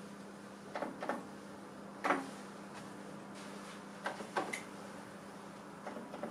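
Keys of a Canon Canola 130S late-1960s electronic desktop calculator being pressed: sharp clacks, singly and in quick pairs or threes, the loudest about two seconds in, over a steady low hum.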